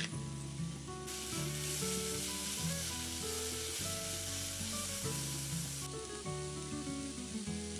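Vegetables sizzling as they fry in olive oil in a pan, over soft background music. The sizzle is strongest from about a second in until about six seconds in.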